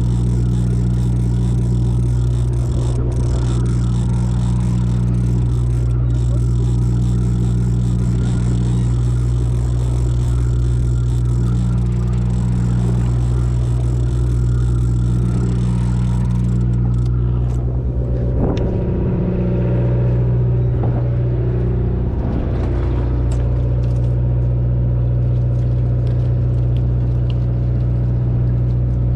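Fishing boat's engine running with a steady low drone. About seventeen seconds in, the hiss above it fades out and the drone carries on unchanged.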